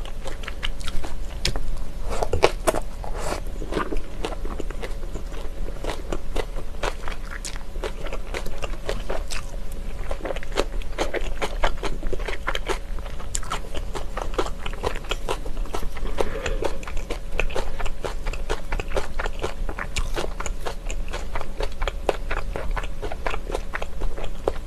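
Close-miked chewing and wet mouth sounds of someone eating a yangjangpi salad of Chinese glass noodles and sliced vegetables in sauce, a dense run of small crunches, smacks and clicks.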